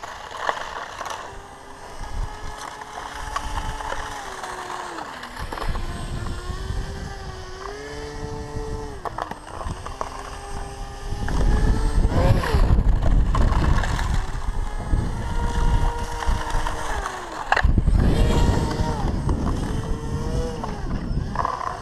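Brushless electric motor and propeller of an RC airboat whining, the pitch rising and falling over and over with the throttle as it slides across snow. Loud rushing noise swells up twice, about halfway through and near the end.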